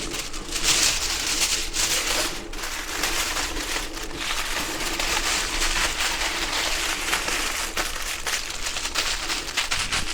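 Foil-wrapped patty melts sizzling and crackling on a hot flat-top griddle plate.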